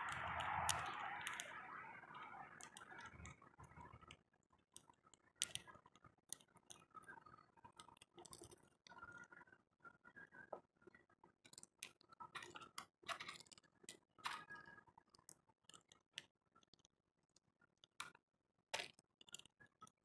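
A bird pecking at a feeder: irregular small clicks and taps of beak on seed and feeder. A hiss fades away over the first few seconds.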